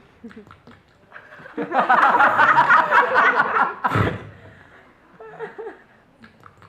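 A group of people laughing loudly for about two seconds, followed by a single sharp thump about four seconds in.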